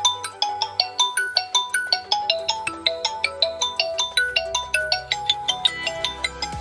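A smartphone ringtone playing: a melody of short, ringing notes at about four a second.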